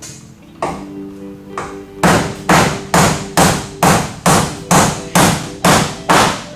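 Hammer driving a fastener with repeated hard blows, about two a second: a couple of softer taps first, then a steady run of about ten strong strikes that ring briefly.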